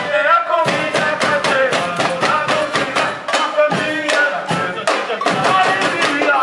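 Samba music: fast, dense percussion with a sung melody over it.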